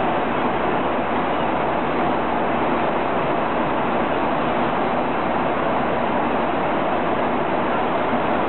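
Steady rush of jet airliner cabin noise in flight: engine and airflow noise heard from inside the cabin, even and unbroken.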